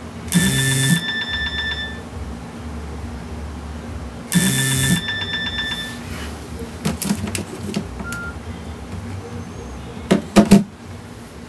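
Mobile phone ringing: two short electronic rings about four seconds apart. Near the end come a few sharp clicks and knocks as the phone is picked up.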